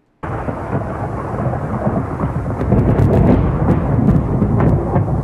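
Thunderstorm: rolling thunder over rain, starting abruptly and swelling to its loudest about three seconds in, with a few sharp crackles.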